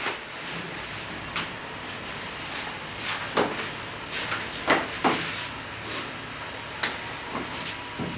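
Irregular knocks and clatter of kitchen work during food preparation, a dozen or so sharp taps over a steady background, the loudest two close together about five seconds in.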